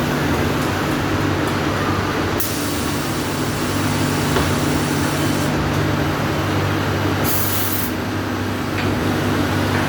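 CNC lathe and autoloader cell running with a steady machine hum, broken by hissing: a longer stretch of hiss about a quarter of the way in and a short, sharp hiss about three-quarters of the way through.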